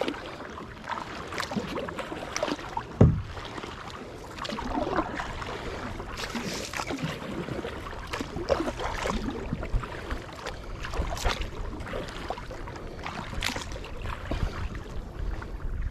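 Kayak paddle strokes splashing irregularly in the water, with a single low thump about three seconds in.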